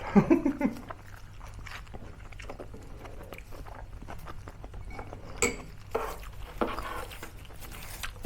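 Irregular crunching and chewing of crispy fried pork mesentery (chicharong bulaklak), with a few louder bites about five and a half, six and six and a half seconds in. A brief voice sound opens it.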